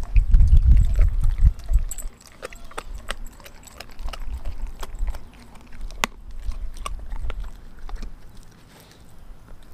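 Doberman gnawing a raw frozen pig's foot: scattered crunches and clicks of teeth on bone and frozen skin, one sharp crunch about six seconds in. A low rumble is loudest in the first two seconds.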